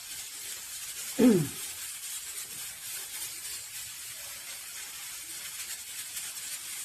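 Steady hiss of steam venting from the pressure regulator of a Hestroney 12-quart stainless steel stovetop pressure cooker at cooking pressure, with the regulator turning slowly. About a second in comes a brief voice sound that falls in pitch.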